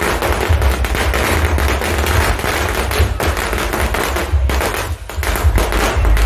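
A string of firecrackers going off in a rapid, continuous volley of loud cracks, with a brief lull about five seconds in.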